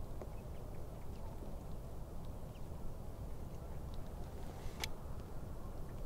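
Steady low outdoor rumble with faint, scattered high chirps, and one sharp click about five seconds in.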